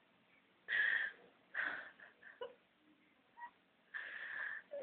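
A woman crying: a few short, breathy sobs, then a longer drawn-out sobbing breath near the end.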